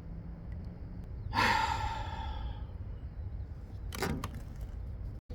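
A man sighs heavily, a long breath out about a second in that fades away, in dismay at having just lost a big bass; a shorter breathy sound follows near the end.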